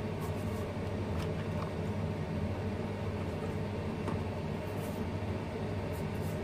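Steady low hum of a running motor, with a few faint light taps as raw fish is handled.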